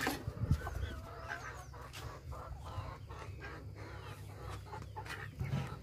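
Backyard chickens clucking quietly, with a single knock about half a second in.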